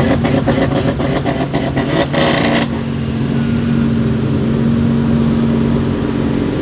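Tuned VW Golf 7R engine revving hard at the start line with rapid crackling pops, stopping abruptly under three seconds in. A steady low engine idle of the cars waiting at the line follows.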